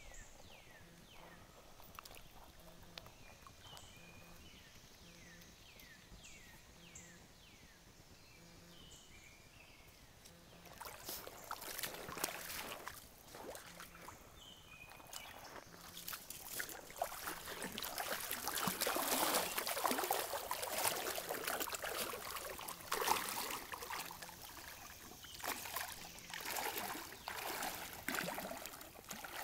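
Quiet at first, with short falling chirps repeating. About a third of the way in, splashing and sloshing of wading through shallow creek water starts and goes on, loudest around the middle.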